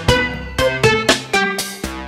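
Electronic instrumental music in an electro/techno style: a quick run of short, plucked-sounding synth notes over a low sustained bass.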